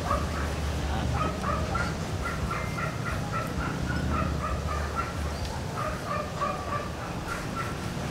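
Fowl clucking: a long run of short, repeated calls, several a second, over a low steady rumble.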